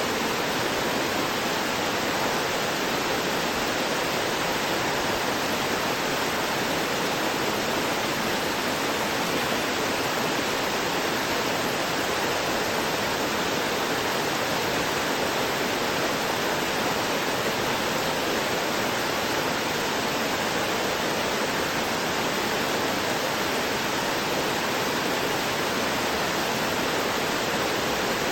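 Waterfall pouring down a rocky cliff: a steady, even rush of falling water.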